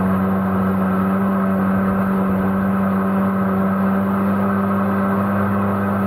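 MotoJet mini jet boat's engine running steadily at speed: a constant drone that holds one pitch throughout, with the rush of the jet and water behind it.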